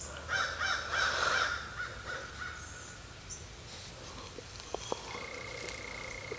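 A bird calling outdoors in a quick run of repeated calls starting just after the beginning and lasting about a second and a half. Later there are two faint clicks, and a thin steady high tone begins near the end.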